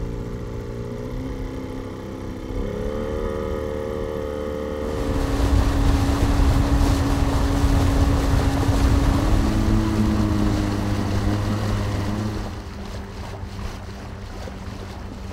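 Small wooden fishing boat's motor running, with a steady engine note that steps up in pitch a couple of seconds in. About five seconds in, the loud rush of water and wind from the boat under way joins it. That rush eases off after about twelve seconds as the boat slows, and the engine keeps running.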